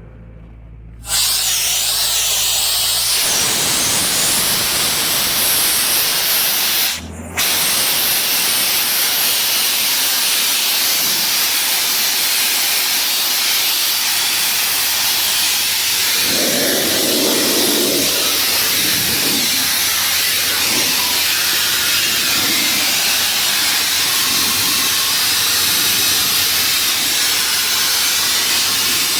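Compressed air blasting from a blowgun nozzle to blow chaff and dust off a hay baler: a loud, steady hiss that starts about a second in, breaks off briefly once and then carries on.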